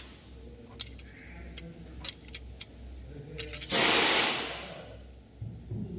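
Light metallic clicks and taps of a spanner and screwdriver on the rocker arms and adjusting screws of a Hino engine's valve gear, during a tappet (valve clearance) setting. A steady low hum runs underneath, and a loud rushing noise breaks in a little before four seconds and dies away over about a second.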